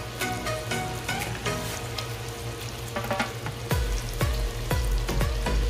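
Chicken, hotdog and mushroom frying in a pot, sizzling and crackling steadily as spaghetti sauce is squeezed in from a pouch. About two-thirds of the way in, a low rumble with repeated dropping tones joins and is the loudest sound.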